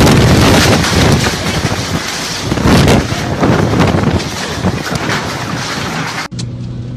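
Violent tornado wind blasting the phone's microphone: a loud, rushing noise that surges in gusts and cuts off abruptly near the end.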